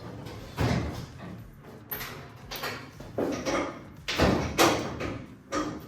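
Irregular knocks and bangs on car body sheet steel, about seven in a row, each with a short fading tail, as a new rear panel is worked into place.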